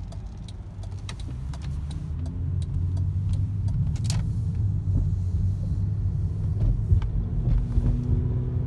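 Car engine and road noise heard from inside the cabin as the car pulls away from a stop and accelerates. The rumble grows louder over the first few seconds, then holds steady.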